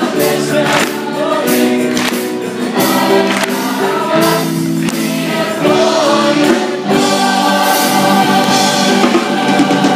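A mixed-voice swing choir singing in harmony, over a steady percussive beat of about two strokes a second.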